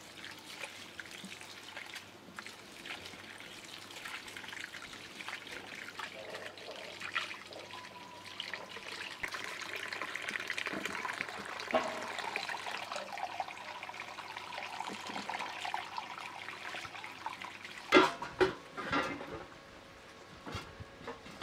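A stream of running water splashes into a plastic bowl of rice while hands rub the grains to wash them, and the cloudy rinse water is poured off over the rim. A few sharp knocks come near the end.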